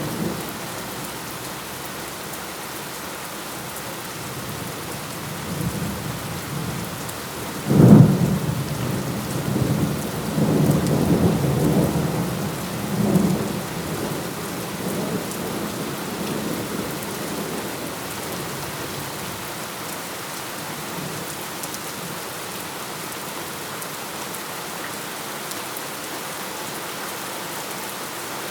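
Steady rain falling, with a sudden thunderclap about 8 seconds in that rolls on as low rumbling for several seconds before only the rain is left.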